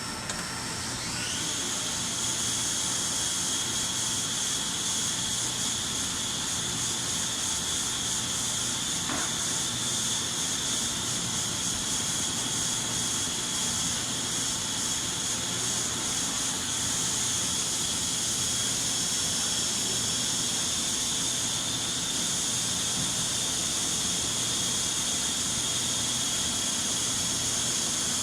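Nakamura-Tome Super NTM3 CNC turning center running a program: a spindle spins up with a rising whine about a second in, then holds a steady high-pitched whine over a constant hiss.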